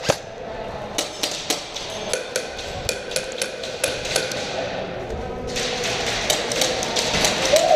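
Airsoft gunfire: sharp, irregular snapping shots, coming thicker and faster from about five and a half seconds in.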